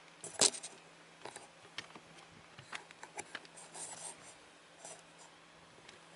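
Camera handling noise: scattered light scratches and clicks, the sharpest about half a second in.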